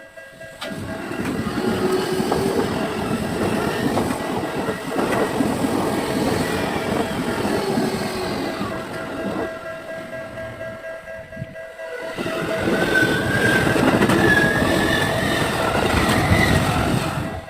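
Electric trains passing over a Tokyo level crossing, wheels and running gear loud, with the crossing's warning bell ringing steadily throughout; played at double speed, so pitch and rhythm are raised. The train noise dips briefly about ten seconds in and swells again with a rising motor whine before cutting off near the end.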